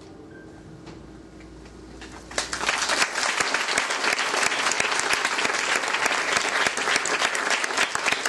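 Audience applause starting suddenly about two and a half seconds in, after a quiet moment at the end of the song, and carrying on as steady dense clapping.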